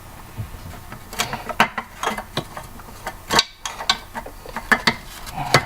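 Business card holder being handled: a string of irregular small clicks and taps, the sharpest about three and a half seconds in.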